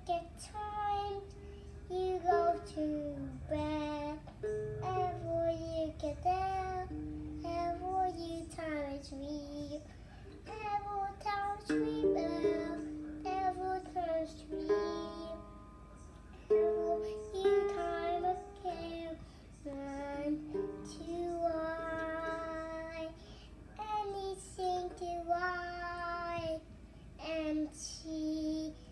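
A young child singing a song in a high voice, phrase after phrase, while strumming a small toy acoustic guitar.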